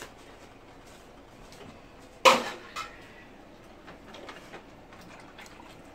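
A single sharp clank of kitchenware about two seconds in, followed half a second later by a lighter tap, over quiet kitchen room tone.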